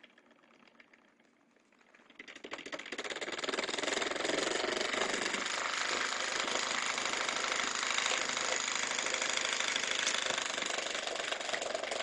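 Homemade reed-switch brushless DC motor on a 12-volt supply starting up about two seconds in: fast, even clicking that merges into a steady mechanical buzz as the reed switch pulses the electromagnet and the rotor comes up to a run of about 1500 RPM.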